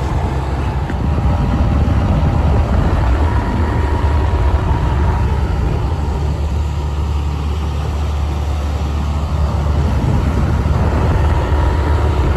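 Outboard motor running steadily at speed, pushing a small 12-foot boat across open water, with wind and water rushing past.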